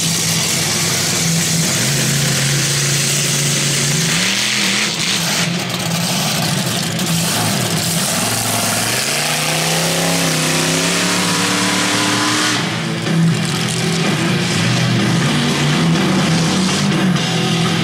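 Monster truck engines idling and revving as the trucks drive slowly, the pitch rising and falling several times over a steady hiss.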